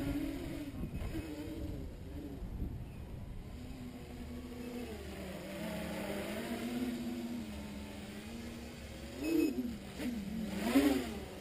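Armattan 355 tricopter's three 2600kv brushless motors and propellers whining in flight, the pitch wandering with the throttle. Near the end it swoops up and down in several quick throttle bursts as the craft flies close.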